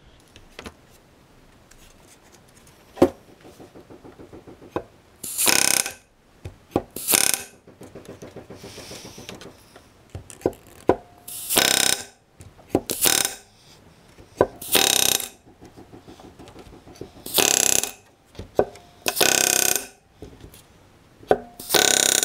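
Pneumatic rivet gun with a back-rivet set hammering the rivets of an aluminium elevator stiffener onto the skin in short bursts, about eight bursts of under a second each, one rivet at a time. Between some bursts there is quieter rapid tapping.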